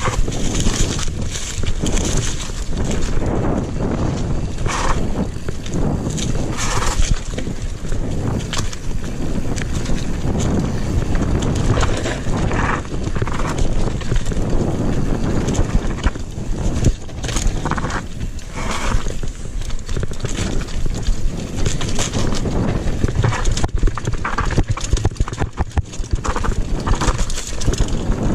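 Mountain bike clattering and rattling over a rough, stony dirt trail at speed, with constant small knocks from the frame, chain and suspension and tyres crunching on stones and leaves. A steady low rumble of wind on the microphone runs underneath.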